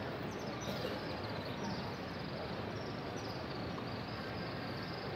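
Steady hubbub of a large crowd, with many small high bird chirps scattered through it.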